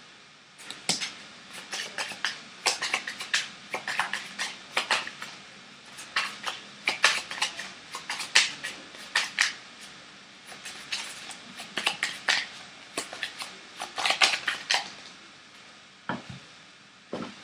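A deck of cards being shuffled by hand: quick, irregular flicks and slaps of the cards against each other, in clusters with short pauses.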